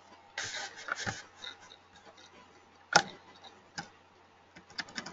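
Scattered sharp clicks and knocks over a faint low hum: a short rustle near the start, a loud single click about three seconds in, another shortly after, and a quick run of lighter clicks near the end.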